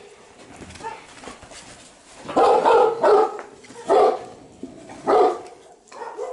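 A dog barking: after a quieter start, a run of four or five short barks about a second apart.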